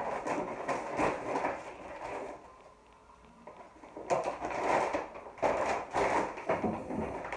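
McDonald's paper takeaway bags rustling and crinkling as they are handled and opened, in two busy stretches with a quieter lull about two seconds in.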